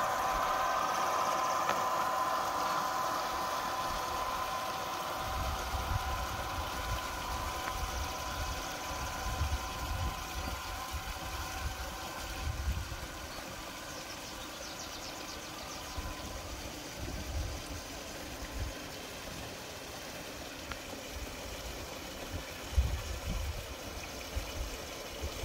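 Model train locomotive pulling track-cleaning cars on a garden railway, giving off a steady hum of two tones that fades over the first dozen seconds as it moves away. Gusts of wind rumble on the microphone from about five seconds in.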